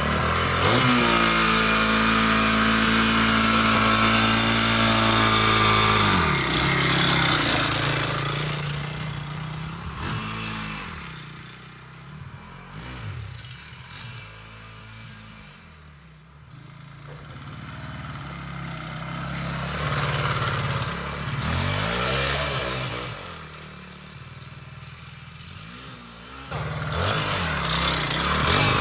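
Suzuki DR200 dirt bike's single-cylinder engine held at high revs for about six seconds, then falling away and revving up and down more faintly, before coming back loud near the end.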